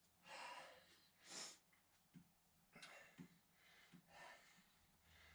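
Near silence: a person's faint breaths close to the microphone, with a few soft clicks.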